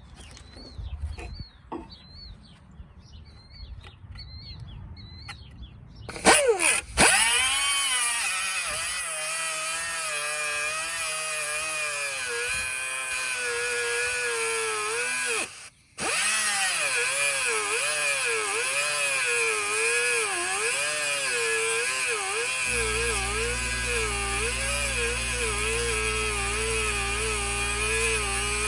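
Air compressor starting up suddenly about six seconds in, then running steadily as it builds up pressure, with a brief dropout partway through. Birds chirp before it starts.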